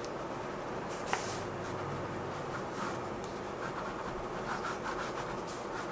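Ballpoint pen scribbling on sketchbook paper, a run of quick scratchy strokes as dark lines are laid down, with a brief tick about a second in.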